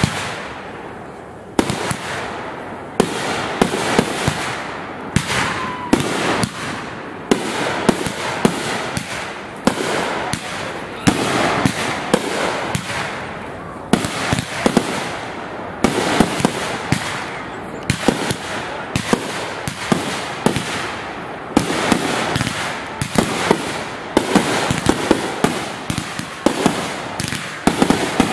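Fireworks show: a fast, continuous series of sharp bangs, one or more every second, over a steady noisy wash of further bursts.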